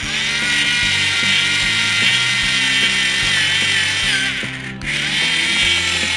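Toy battery-powered screwdriver whirring as it drives a plastic screw into a toy submarine's propeller, in two spells with a short stop about five seconds in.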